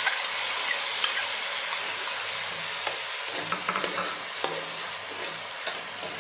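Tamarind pulp and liquid hitting hot oil and fried garlic in a non-stick wok, sizzling steadily and slowly dying down. A metal spatula clicks against the pan now and then as it stirs.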